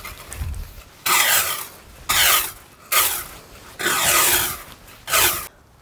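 A garden rake scraping across a wet lawn in five quick strokes, about one a second.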